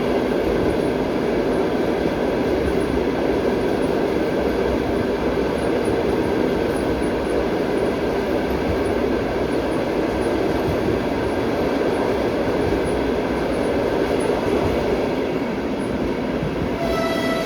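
Passenger train running along the line, heard from aboard a carriage: a steady rumble and roll of wheels on rail. A steady pitched tone sets in right at the end.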